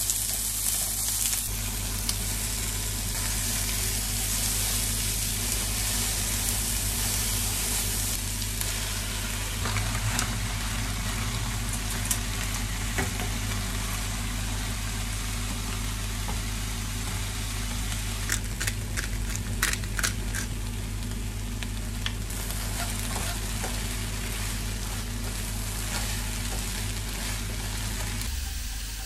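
Vegetables sizzling steadily as they stir-fry in a frying pan, with a cluster of sharp clicks of utensils on the cookware about two-thirds of the way through.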